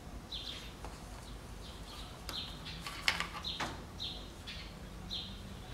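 Small birds chirping over and over in short high notes, about once a second. About three seconds in come a few sharp taps, the chiropractor's mallet striking against the horse's shoulder as part of an equine chiropractic adjustment.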